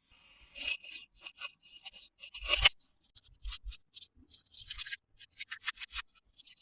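Toy packaging being handled and opened: a quick run of short, scratchy crinkles and scrapes, the loudest about two and a half seconds in.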